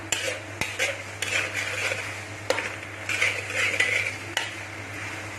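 Chilli chicken being stirred in a hot pan over high heat: a utensil scrapes and clinks against the pan now and then, over frying sizzle.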